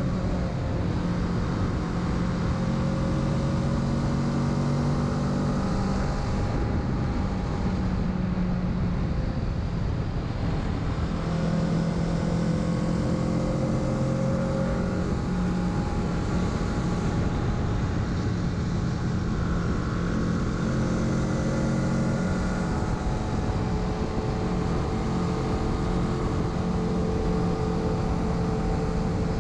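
Kawasaki Z650's parallel-twin engine running under way, its note rising and falling as the throttle opens and closes, over steady wind noise.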